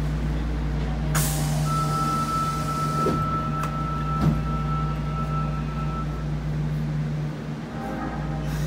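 Cabin sound of an Osaka Metro 70 series linear-motor subway car as its doors close: a low hum runs throughout, a sudden hiss of air comes about a second in, and a steady high tone sounds for several seconds. Near the end new motor tones begin as the train starts to move.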